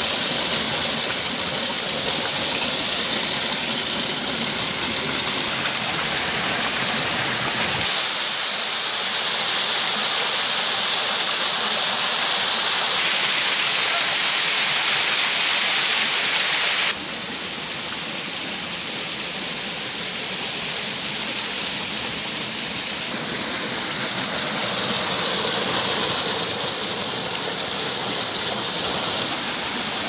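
Forest stream's small waterfall and cascade rushing and splashing steadily over mossy boulders. Its level and tone jump abruptly three times, about five, eight and seventeen seconds in.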